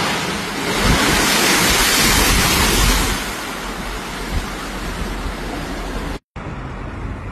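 Big sea waves crashing against a seawall and sending spray and water rushing over the paved promenade. The rushing noise swells loudest about a second in, holds for two seconds and then eases back, with a brief dropout near the end.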